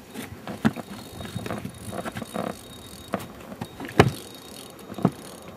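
Irregular knocks and clicks from handling on a small inflatable boat, the loudest thump about four seconds in, with a faint steady high whine through the first half.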